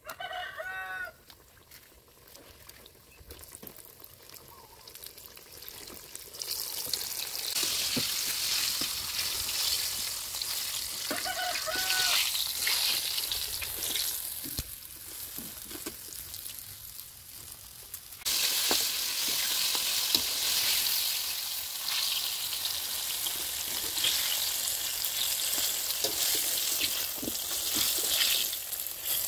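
Hot oil sizzling as battered chicken wings deep-fry in a wok, a steady crackling hiss that comes up about six seconds in and gets louder about two-thirds of the way through.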